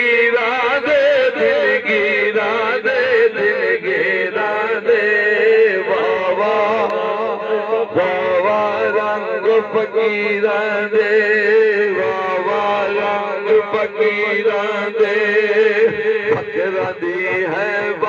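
A man singing a wordless, wavering melodic passage of Sufi devotional kalam into a microphone, over a steady held drone.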